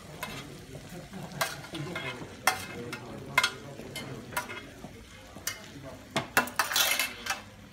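Metal serving fork and spoon clinking and scraping against a metal serving platter and plates as roast potatoes are served out: sharp clinks about once a second, with a longer run of scraping near the end.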